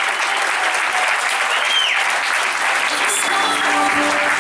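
Audience applauding steadily, with one high whistle that rises and falls about a second and a half in.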